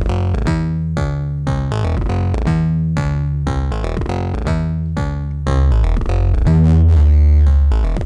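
Sequenced Karplus-Strong riff from a Joranalogue Delay 1 short delay line, excited by the square wave of an Intellijel Dixie II oscillator: a quick run of plucked, pitched low notes, several a second, with a longer held low note near the end.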